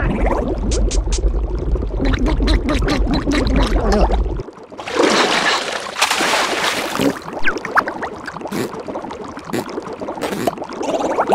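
Cartoon water sound effects: a deep underwater rumble with bubbling for about four seconds, then an abrupt change to splashing, lapping water at the surface.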